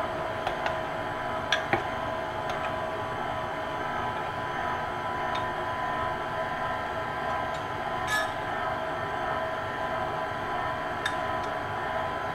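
KitchenAid Classic Plus stand mixer running steadily, its motor whining evenly as the beater turns through thick pound cake batter in a metal bowl. A few short clicks come through during the run.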